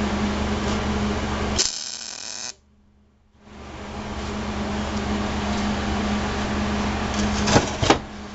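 MIG welding setup on steel tubing with a steady machine hum. A short buzzing burst comes about one and a half seconds in, as the weld stops. After a brief near-quiet gap the hum returns, and two sharp metal knocks come near the end.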